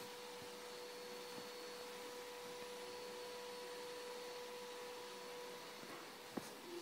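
Faint steady hum at one pitch over quiet room hiss, with a small click near the end.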